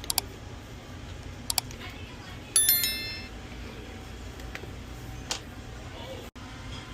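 Small sharp clicks in two quick pairs, then a brief ringing tone about two and a half seconds in, over a steady low hum. The clicks fit small tools and parts being handled during a phone repair.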